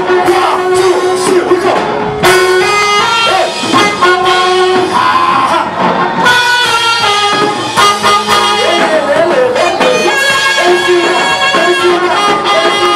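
Praise music with instruments and singing: sustained held notes under a bending melody line.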